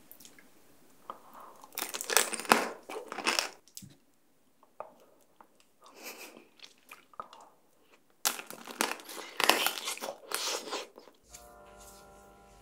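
Close-up biting and chewing of tanghulu, fruit coated in a hardened sugar shell. There are two loud spells of crunching several seconds apart, with quieter chewing between them. Soft music starts near the end.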